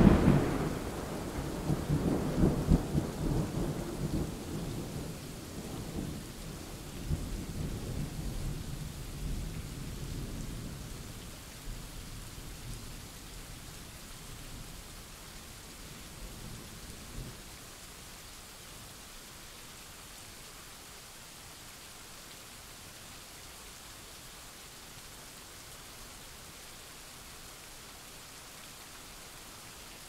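Rolling thunder from a thunderstorm, loud at first and swelling a few times before dying away over about seventeen seconds, leaving steady rain.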